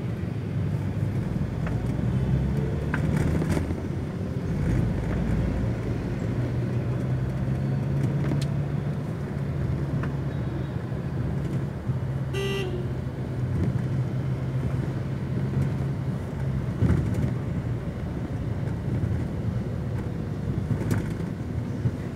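Motorbike street traffic heard from a moving motorbike: engines running with a steady low drone and rumble, and a short horn beep about halfway through.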